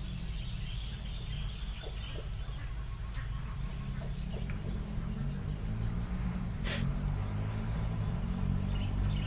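Insects chirring in a steady, high, even drone over a low steady rumble, with one sharp click about seven seconds in.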